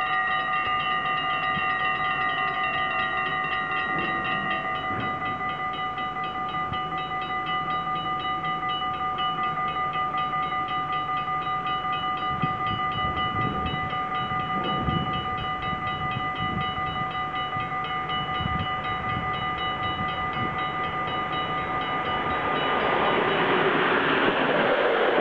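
Level-crossing warning bells, mechanical strikers on bells, ringing a fast, steady clatter of strokes. Near the end the noise of an approaching train rises and grows louder under the bells.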